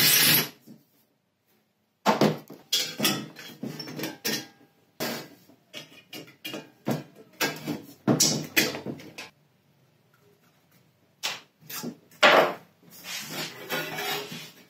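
A cordless drill runs briefly at the start, boring through the metal helmet. After a short silence come irregular metallic clicks and clanks as clecos are pushed into the drilled holes with cleco pliers and the steel helmet is shifted on the bench.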